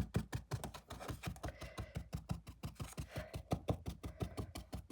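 A paintbrush dabbed quickly and repeatedly onto a rough, textured canvas, stippling on oil paint: a fast, even run of small taps, about eight a second.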